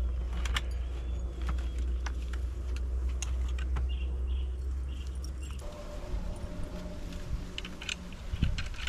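Scattered light metallic clicks and clinks as parts of a grass cutter (engine unit, shaft housing and coupling) are handled and fitted together by hand. Underneath is a steady low rumble that stops about two-thirds of the way through.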